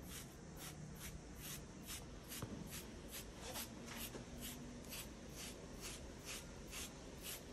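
Coarse carding knife raking through a cocker spaniel's coat in quick repeated strokes, about three a second, each a faint scratchy rasp, pulling out the dead undercoat.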